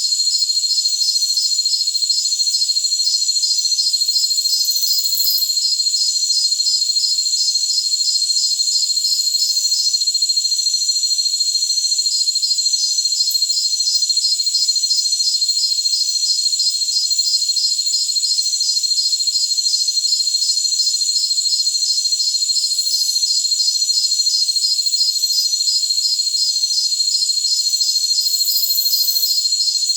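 Jungle crickets chorusing: a steady high-pitched trill with a faster pulsed chirping over it, about three chirps a second, the chirping pausing briefly around ten seconds in.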